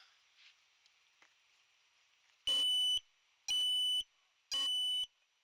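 Small onboard buzzer of a 2-inch FPV quadcopter beeping: three loud, high, steady-pitched beeps, each about half a second long, one per second, starting about halfway through.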